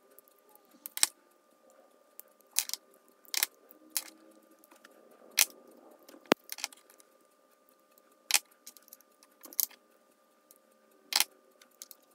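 A thin pointed steel tool picking and scraping inside a metal screwdriver ferrule to dig out old handle wood: short, sharp clicks at irregular intervals, about one a second.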